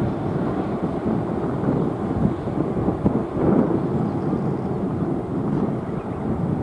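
Jet engines of a Boeing 747-8 freighter at takeoff thrust: a loud, steady low rumble full of crackle, from its four GEnx-2B engines.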